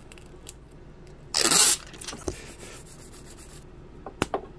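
Metal shears cutting through a strip of hook-and-loop Velcro tape: one short rasping cut about a second and a half in, then a couple of small sharp clicks near the end.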